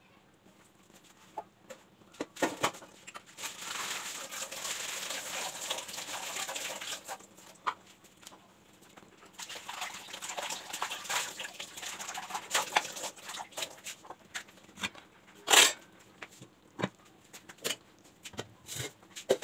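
Paya stew simmering in a clay matka on low flame: bubbling and crackling in two spells of a few seconds each, with scattered small pops and one sharp pop about fifteen seconds in.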